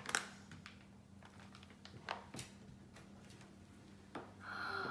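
Homemade slime being handled and squeezed, giving faint, scattered sticky clicks and squelches.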